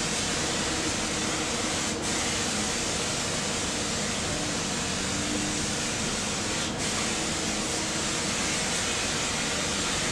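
Steady rushing background noise with a faint low hum, thinning briefly twice; nothing from the crocheting stands out above it.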